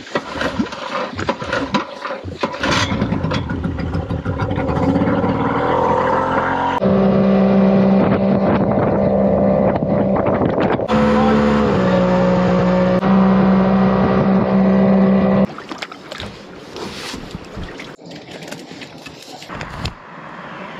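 Outboard motor on a small boat running at speed: the revs climb over the first several seconds, then hold steady with a brief dip in pitch midway, and the engine sound cuts off suddenly about two-thirds through. After it, footsteps and rustling of gear.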